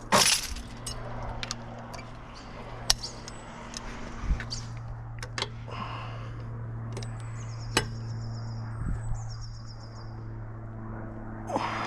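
Scattered short metallic clicks and knocks of hand tools working on a car, over a steady low hum. A run of high chirping tones comes in about seven seconds in and lasts a couple of seconds.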